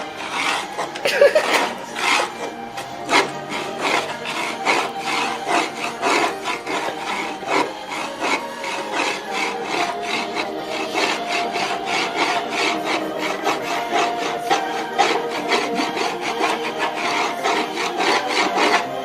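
Hand tool scraping and scoring a wooden board in repeated strokes, a few a second.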